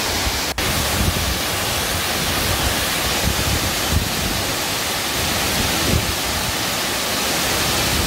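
Miin Falls at low flow: steady rushing of water falling down rock into its plunge pool, broken for an instant about half a second in.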